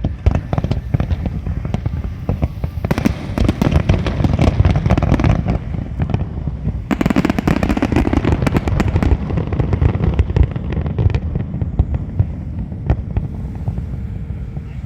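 Fireworks display: a dense stream of bangs and crackling over a continuous low rumble, thickest in two waves about three and seven seconds in.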